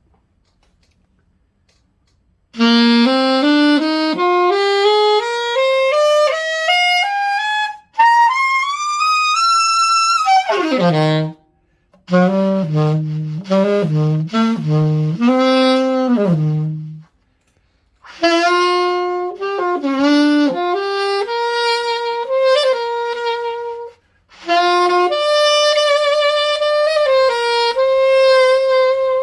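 Yamaha YAS-62 alto saxophone, freshly fitted with new pads, played after a short silence: a scale rising note by note up into the top of its range, a quick run down to the lowest notes, several low notes, then two short melodic phrases.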